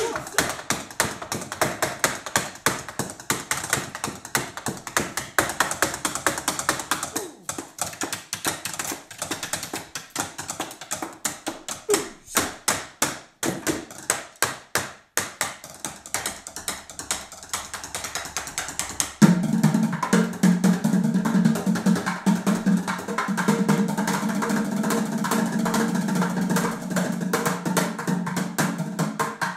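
Drumsticks beating out fast rhythmic patterns on a hard counter top and a chair: dense dry taps and clicks, thinning to sparser sharp clicks in the middle. About two-thirds through, the sound switches to plastic bucket drumming, with deeper hits under the stick clicks.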